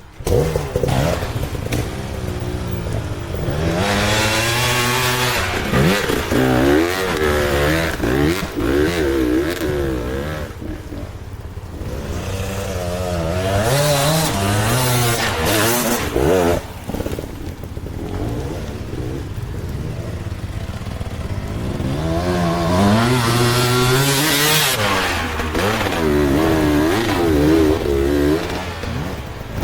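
Two-stroke dirt bike engine of a Beta 200 under load, the throttle worked in repeated rising and falling surges, with two lower, steadier spells near the middle.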